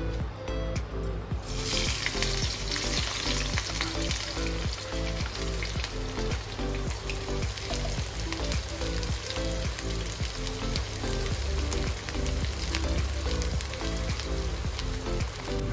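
Chopped onions dropping into hot oil in a wok and sizzling, the hiss starting about a second and a half in, with the clicks and scrapes of a slotted spatula stirring them.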